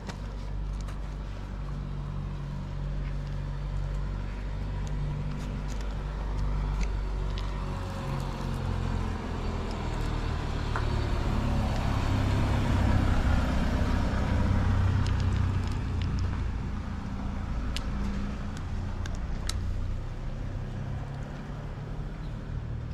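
A motor vehicle's engine running, growing louder to a peak about halfway through and easing off again, with scattered faint clicks.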